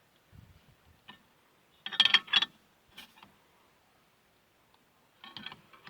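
Short metallic clicks and clinks from a 22 mm wrench working the bolt of a home-made brake caliper piston press as the piston is pushed back in. A quick cluster of louder clinks comes about two seconds in, with single clicks around it and a few more near the end.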